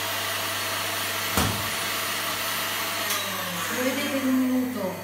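Stand mixer running steadily at high speed, whipping whole eggs, yolks, sugar and honey in its steel bowl. A short click comes about a second and a half in.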